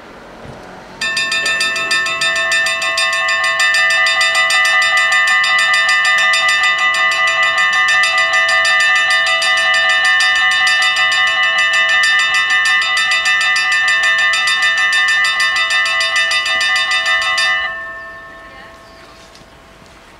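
Level-crossing warning bells of a Dutch AOB crossing (two bells) ringing rapidly and continuously while the red lights flash and the barriers lower. They start sharply about a second in and stop a couple of seconds before the end, once the barriers are down, the ringing dying away.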